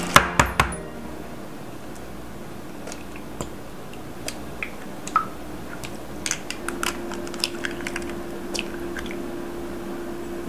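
A glass mixing bowl knocks sharply against a countertop a few times as it is set down. Then raw eggs are tapped and cracked open into the bowl one after another, with scattered small cracks, clicks and the squish of shells.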